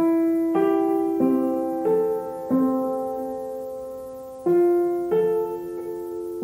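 Slow background piano music: notes and chords struck every half second or so, each fading as it rings, with one chord held for about two seconds midway.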